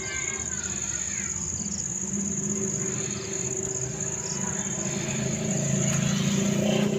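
Crickets chirping in a steady high-pitched chorus over a low, steady hum.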